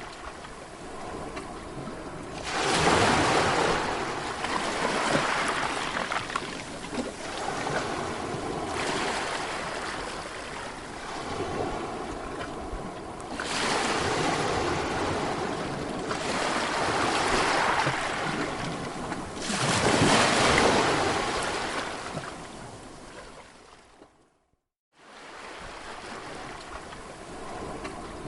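Sea waves breaking on a shore, a steady hiss of surf with several larger waves surging in and washing back. Near the end the sound cuts out completely for about a second, then the surf resumes.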